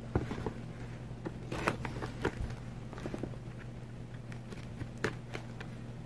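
A fixed-blade knife slicing packing tape on a cardboard box: scattered scrapes, clicks and crackles of tape and cardboard over a steady low hum.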